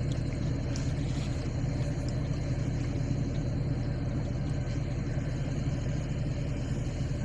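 Vehicle engine idling steadily with an even low rumble, with no revving or change in pitch.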